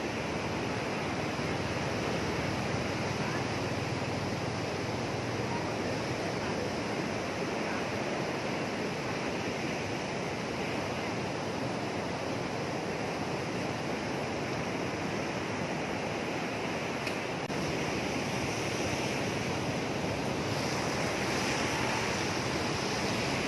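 Rough surf washing up on a sandy beach in strong onshore wind: a steady rushing wash of breaking waves, with wind on the microphone, growing a little louder about two-thirds of the way through.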